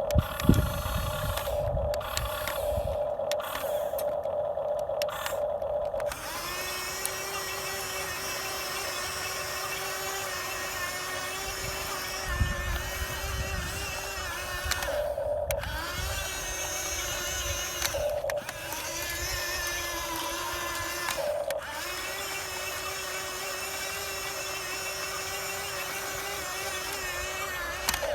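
Whine of the small electric motors on a radio-controlled model excavator, changing pitch about a fifth of the way in, then stopping and starting again several times as the machine works.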